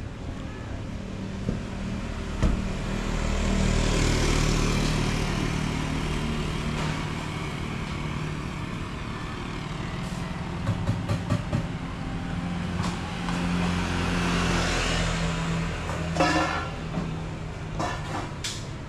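Street traffic: a steady engine hum, with vehicles swelling past twice and fading away. Short clicks and a brief higher tone come near the end.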